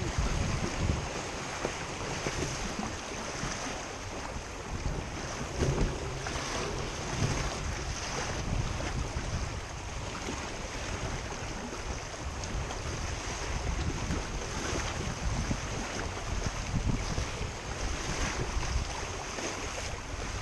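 Wind buffeting the microphone over the steady rush and splash of water along a sailing Laser Vago dinghy's hull, with gusts swelling now and then.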